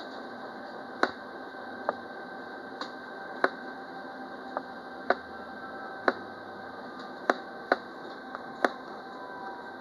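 Cab of a moving Alstom Citadis Dualis tram-train: a steady running hum with a faint steady tone, broken by sharp ticks about once a second at uneven spacing.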